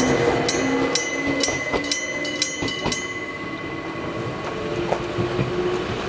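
Electric bell of a railway level crossing signal, a hammer striking a gong about twice a second, stopping about three seconds in. A train runs past on the line through the crossing.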